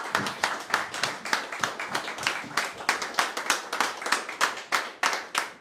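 A small crowd applauding in a room, many individual hand claps overlapping unevenly, thinning out and dying away near the end.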